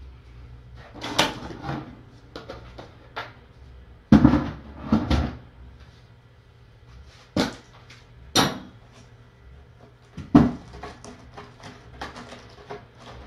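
Irregular knocks, bumps and clatter, like household objects being moved and set down. The loudest is a cluster of thuds about four to five seconds in, with a sharp knock at about ten seconds and lighter clicks between.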